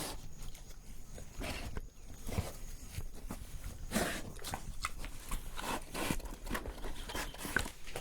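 Pig breathing in short, irregular breaths and sniffs.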